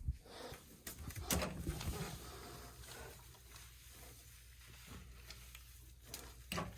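A few light knocks and clicks from handling, the loudest at about one and a half seconds and another near the end, over a faint low hum.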